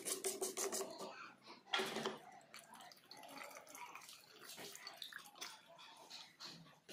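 Diesel trickling and dripping off a used fuel filter element back into its plastic filter housing as the element is lifted out. In the first two seconds there are handling knocks of the plastic housing, the loudest a sharp knock just under two seconds in.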